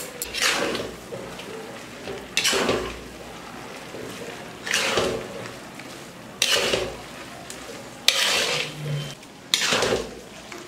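A spatula scraping and stirring a nearly finished dry cabbage and fish-head curry in a cooking pan, about six strokes one every one and a half to two seconds, with a low sizzle between strokes. This is the final mixing after the garam masala powder goes in.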